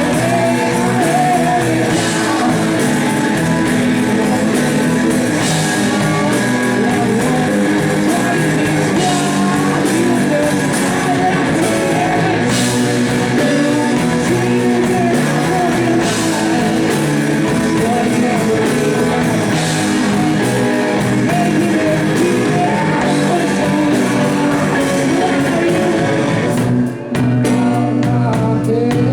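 Live blues-rock band playing loudly, with electric guitar and drum kit. The band drops out for a moment near the end, then comes straight back in.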